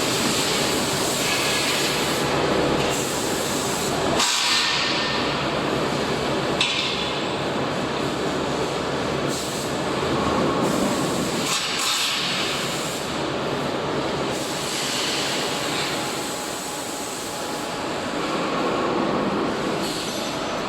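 Tire-shredding machinery of a TDF recycling line running: a loud, continuous mechanical rumble and grinding that swells and eases a little.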